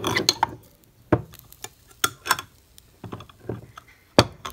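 Handling noise at a kitchen counter: a series of irregular sharp clicks and knocks, the loudest one near the end.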